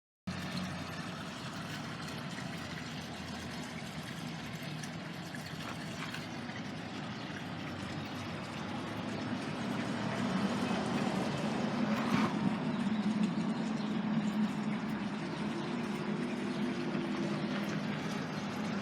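Street traffic noise: a motor vehicle's engine hum grows louder about halfway through and eases off near the end, over a steady outdoor background hiss.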